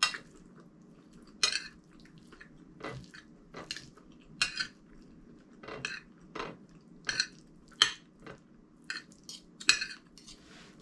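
Metal spoon and fork clinking and scraping against a plate while eating, about a dozen short, sharp clinks at irregular intervals.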